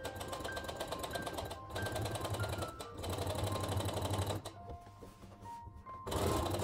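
Brother Innovis 15P sewing machine stitching fast through linen, stopping about two-thirds of the way through and starting up again near the end.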